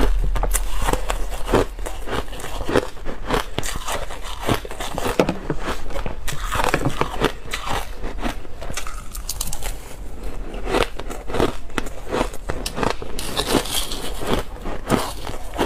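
Crushed ice being chewed close to a clip-on microphone: a dense, irregular run of crisp crunches and crackles.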